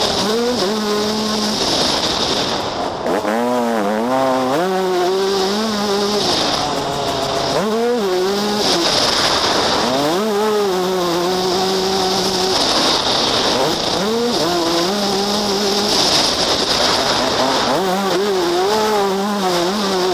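Yamaha YZ125 two-stroke single-cylinder motocross engine, heard from on board, revving hard. Its pitch climbs and drops again every second or two as the rider works the throttle and shifts through the gears.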